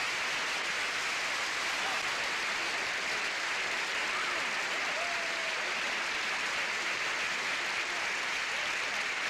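Studio audience applauding steadily, with a few faint shouts from the crowd.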